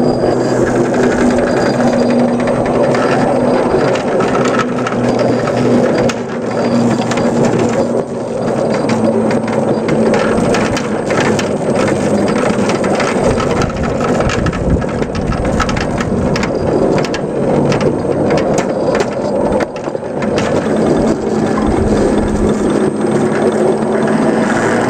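5-inch gauge ride-on model Whitcomb locomotive running along its track and pushing through snow. A steady drive hum runs under loud rough running noise and many small clicks and knocks.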